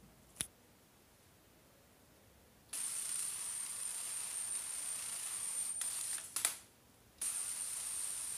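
High-voltage corona discharge from the ionocraft's 50 kV supply: a steady hiss with a thin high-pitched whine switches on about two and a half seconds in as the lifter takes off. A sharp spark crack about six and a half seconds in, after which the hiss cuts out for under a second and comes back. A single click shortly after the start.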